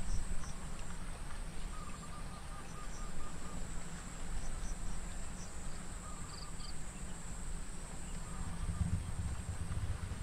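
Evening outdoor ambience: a steady high insect drone, with a few short bird chirps and a brief trill of quick, evenly spaced notes about two seconds in, over a low rumble.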